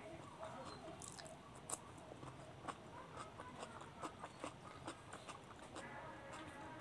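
Close-miked chewing of a slice of raw cucumber, with many small, sharp, crisp crunches and wet mouth sounds.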